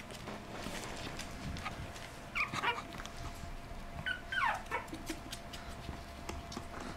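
Young puppy whimpering: two high squeals that slide down in pitch, about two and a half and four seconds in, with light clicks of claws on a wooden floor between them.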